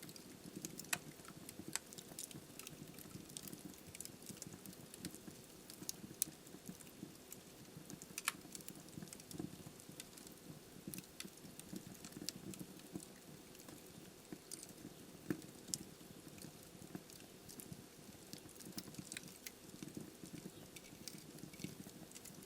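Wood fire burning in a fireplace: a soft, steady low rush with frequent irregular crackles and pops from the burning logs, a handful of them sharper and louder.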